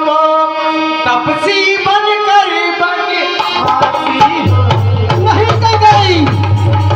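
Live stage music with tabla drumming, sustained melodic tones and a voice singing with pitch glides. A steady low hum joins about four and a half seconds in.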